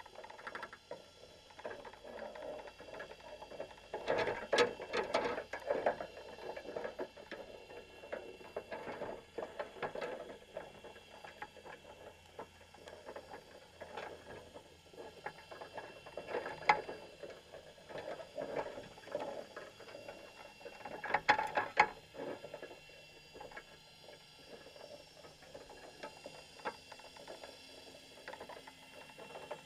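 Irregular clicking, rattling and scraping in a crab pot on the sea floor, heard underwater through the camera housing. It comes in short clusters, loudest about four to six seconds in and again a little after twenty seconds. These are the sounds of the crabs and the wire pot and bait cage knocking together.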